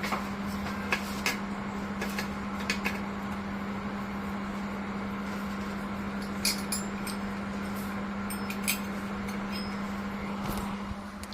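Fans and water-cooling pump of a DIY water-cooled thermoelectric (Peltier) mini air conditioner running steadily at full power, a constant hum with a steady tone over airflow noise. Scattered light clicks and taps of objects being handled, and the hum eases off a little near the end.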